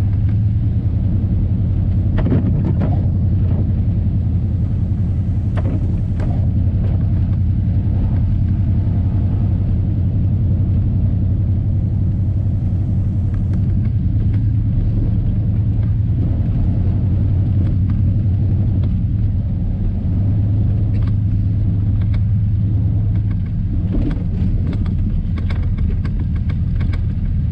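Old Chevy pickup running in four-wheel drive, a steady low rumble of engine and drivetrain heard from inside the cab, swelling slightly a couple of times.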